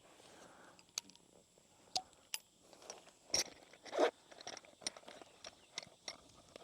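Irregular light clicks, taps and small knocks from hands working on a motorcycle wheel and handling small metal parts and tools.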